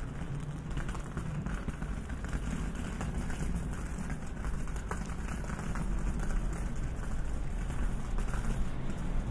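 Urban street ambience: a steady low hum of distant traffic, with a walker's footsteps faintly ticking on the pavement.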